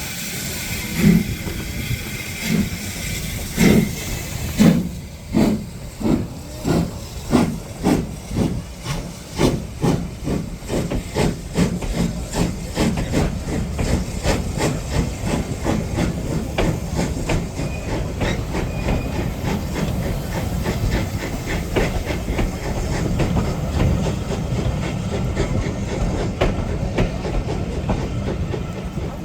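L&Y A Class 0-6-0 steam locomotive No. 52322 pulling away: slow, loud exhaust beats that quicken steadily into a fast, even chuffing as it gathers speed. A hiss of steam sounds over the first few seconds and dies away after about four seconds.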